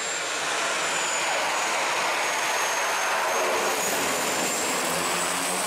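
Pilatus PC-6 Turbo Porter's single turboprop engine and propeller running loudly close by on the runway, a rushing engine-and-propeller noise with a thin high turbine whine that dips and then climbs again.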